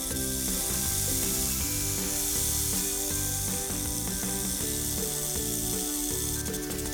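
Background music: a tune of short held notes over a moving bass line, with a steady high hiss over it.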